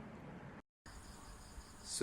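Faint background hiss in a pause between speech, cut to dead silence for a moment about half a second in, as at an edit join. After the cut, faint steady high-pitched tones sit under the hiss.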